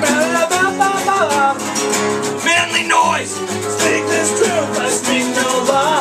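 Several acoustic guitars strumming and picking a song together, with a voice singing over them.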